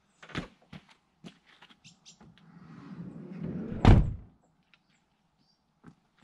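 Sliding side door of a Peugeot Boxer campervan rolled shut, running along its track and ending in a heavy slam about four seconds in. A thud and a few light clicks come before it.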